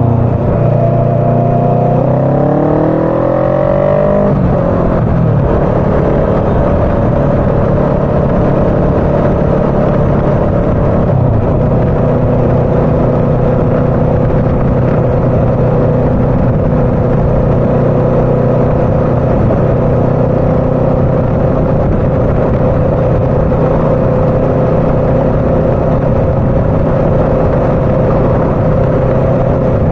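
Motorcycle engine pulling away, its note rising for a couple of seconds and then dropping sharply at a gear change about four seconds in, with another small drop near eleven seconds, before settling into a steady cruising note. Wind and road noise run underneath throughout.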